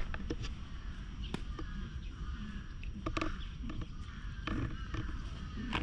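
Birds calling in short wavering calls, with several sharp clicks close by and a steady low rumble of wind on the microphone.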